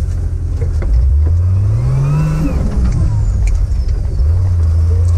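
Turbocharged TB42 straight-six petrol engine of a GQ Nissan Patrol comp truck, heard from inside the cab. The revs climb about a second in, fall back, then pick up again near the end.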